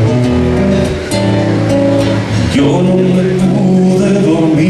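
Live solo song: a man singing over a strummed acoustic guitar.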